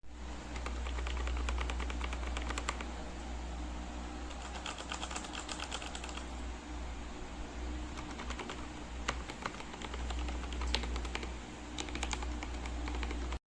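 Typing on an Aigo Darkflash GD100 mechanical keyboard: a steady run of rapid, irregular key clicks, with a low hum underneath.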